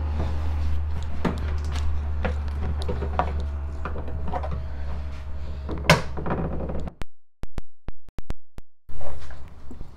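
Plastic retaining clips snapping and the trim panel rattling as a Toyota Highlander's liftgate trim panel is pried loose with a plastic trim tool, with a sharp pop about six seconds in. A steady low hum sits under it, and the sound drops out briefly near the end.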